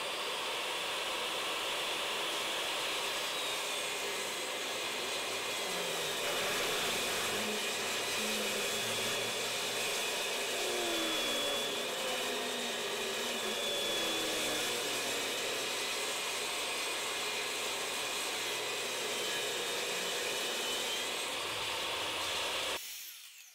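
Portable table saw running steadily, its blade ripping a long mahogany board lengthwise in one continuous pass. The sound cuts off suddenly near the end.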